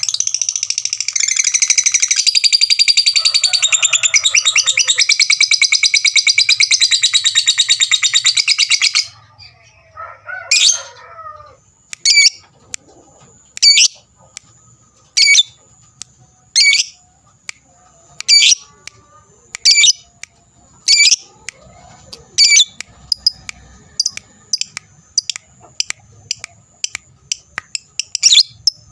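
Lovebird giving a long, rapid, unbroken chattering trill (its 'ngekek') for about nine seconds, then single sharp chirps roughly every one and a half seconds.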